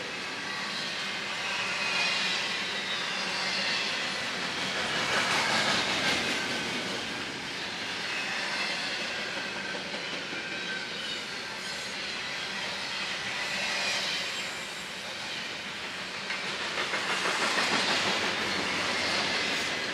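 Train cars rolling past on the rails, a steady rumble and clatter that swells and fades every few seconds.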